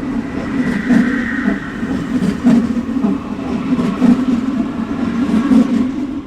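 Subway train running on its tracks: a steady low rumble with a louder clatter of the wheels about every second and a half. A faint high whine comes about a second in.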